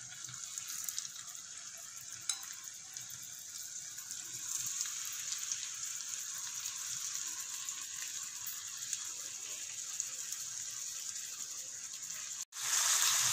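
Marinated chicken drumsticks sizzling in hot butter and oil in a nonstick pan, a steady hiss with small crackles. It grows a little louder about halfway as more pieces go in, cuts out for an instant near the end, then comes back louder.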